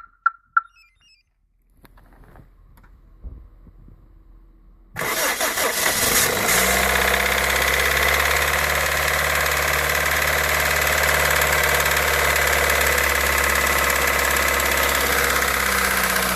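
Two short beeps, then a Toyota 1ZZ-FE 1.8 four-cylinder engine is started about five seconds in and settles into a steady idle. It carries the knock that this engine makes at start-up and that dies away after a while, which the owner thinks may be the timing chain.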